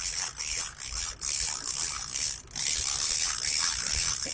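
Fishing reel being cranked, its gears clicking steadily as a heavy fish is reeled in, over a steady hiss of water. The winding pauses briefly twice.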